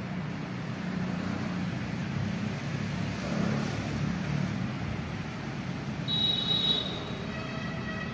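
Steady low rumble of road traffic, with a brief high-pitched tone about six seconds in and fainter held tones near the end.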